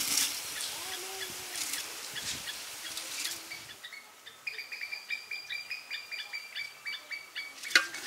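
Rice pouring from a metal bowl into a hot pot, a grainy hiss with small ticks for the first few seconds. Then a bird calls a quick run of repeated high notes for about three seconds, and a sharp knock comes near the end.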